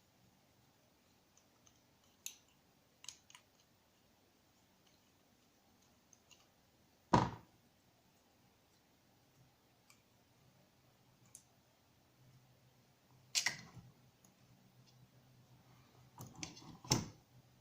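Scattered clicks and knocks of small hand tools and carburetor parts being handled during disassembly, with the loudest knock about seven seconds in and a quick cluster near the end.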